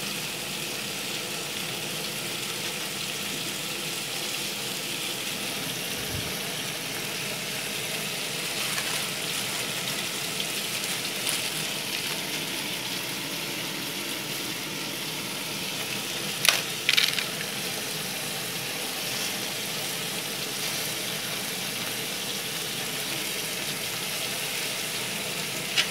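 Steady hiss of pots cooking on a gas stove, mainly a large aluminium pot of water with rice just added to it, at the boil. A few sharp clicks a little after halfway.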